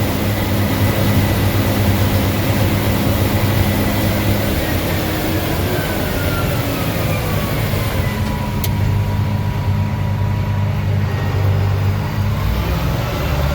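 Combine harvester running steadily with a heavy engine hum, heard from inside the machine; a whine glides down in pitch about five seconds in, holds, and rises again near the end.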